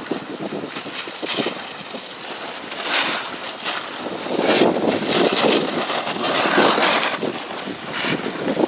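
Edges scraping and hissing over packed snow on a ski slope, swelling and fading every second or two as the rider turns, with wind rushing on the microphone.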